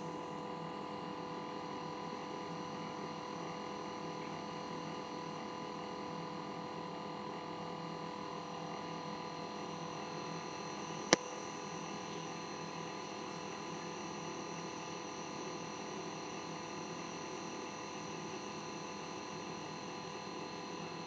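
Reef aquarium equipment running: a steady hum with several thin, high whining tones, and one sharp click about halfway through.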